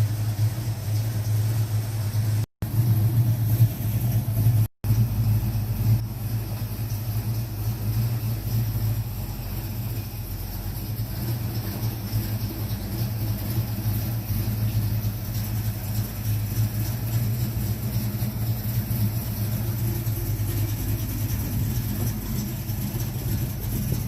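Ford 351 Windsor V8 running steadily at idle, its Holley 600 four-barrel carburetor freshly rebuilt with new gaskets. The sound is a little louder for the first few seconds and cuts out briefly twice, about two and a half and five seconds in.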